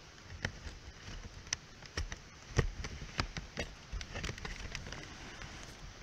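Irregular sharp clicks and low thumps over a faint outdoor hiss: handling noise from a handheld camera being moved about, likely with steps on a dirt track.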